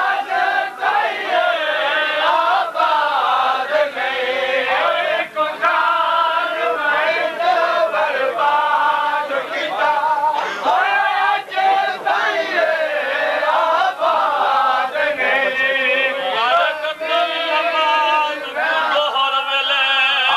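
A crowd of men chanting a nauha, the Shia mourning lament, in unison, broken by repeated sharp slaps of hands striking chests (matam).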